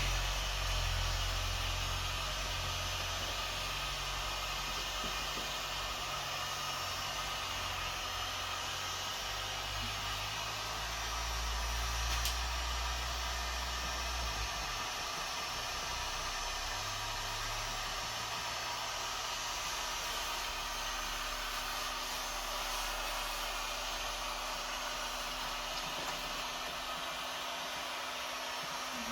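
Heat gun blowing steadily, a continuous hot-air hiss, heating the headliner fabric and glue, with one brief click partway through.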